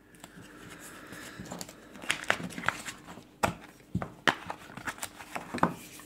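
Handling a Zippo lighter and its small cardboard box: a soft rustle of packaging, then half a dozen sharp clicks and knocks of the lighter and box being handled.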